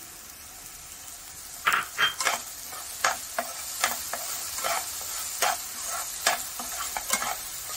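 Thick masala paste sizzling softly in oil in a nonstick kadhai. From about two seconds in, a perforated steel spatula stirs it and scrapes the pan in repeated short strokes, one or two a second.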